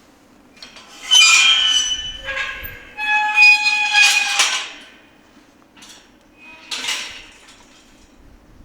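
Metal clanking and ringing in several loud bursts: three close together in the first few seconds, then two shorter ones near the end, each with high, steady ringing tones. A low steady hum runs underneath.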